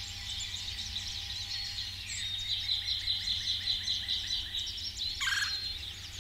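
Backyard bird chorus of high chirps, with a rapid run of repeated notes in the middle. About five seconds in comes a single short, rolling churr call from a red-bellied woodpecker.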